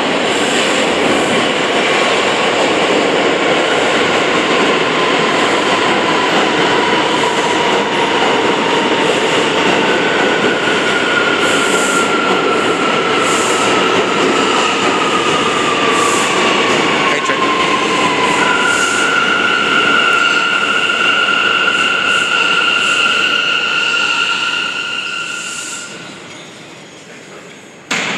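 New York City subway train pulling into the station and braking to a stop: loud rumbling of wheels on rail with high wheel squeals, one sliding down in pitch, then a steady squeal. Near the end the noise dies away as the train halts, and a sharp knock follows.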